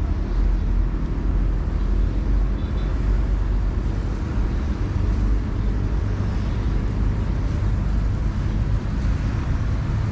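Engine of a small canopied passenger motorboat running steadily as it approaches, a low droning hum.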